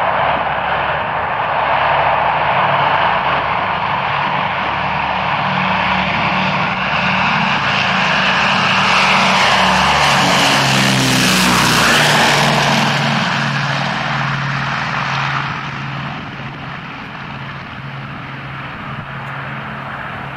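Douglas DC-6's four Pratt & Whitney R-2800 radial piston engines and propellers at full power on a takeoff roll and climb-out. The drone grows as the aircraft nears, drops in pitch as it passes close about halfway through, then fades as it climbs away.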